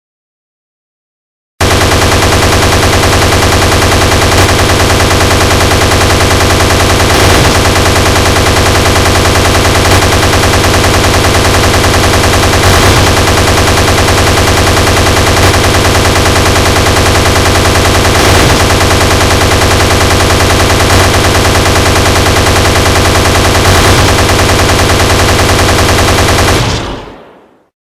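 Automatic gunfire sound effect: a long, unbroken stream of rapid shots that starts about a second and a half in and fades out near the end.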